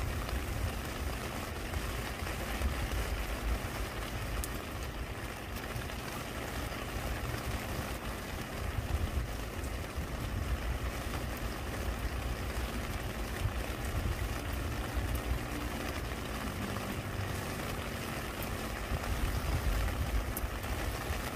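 Steady rain falling close by, an even hiss with a constant low rumble underneath and scattered faint drop ticks. A faint hum dips slightly in pitch about fourteen to seventeen seconds in.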